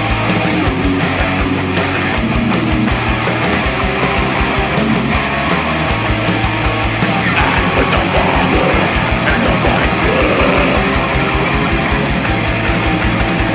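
Black metal recording: dense distorted electric guitars over fast, steady drumming, with rapid kick-drum strokes that become especially even in the second half.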